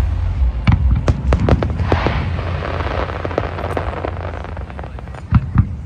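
Aerial fireworks shells going off: a quick run of sharp bangs, then a spell of crackling and hissing from bursting stars, and two more bangs near the end.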